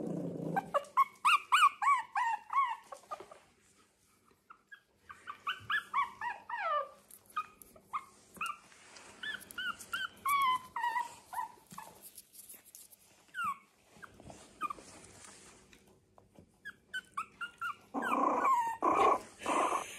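Young puppies murmuring and whimpering in runs of short, high squeaks, then a rough little baby growl near the end.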